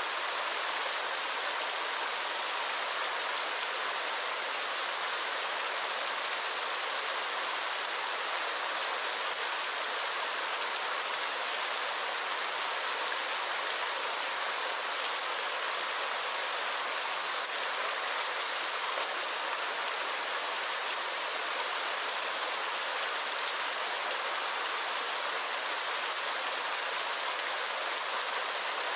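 Steady, even rush of running water with a hissing quality and no change in level.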